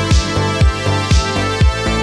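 Electronic background music with a steady four-on-the-floor kick-drum beat, about two beats a second.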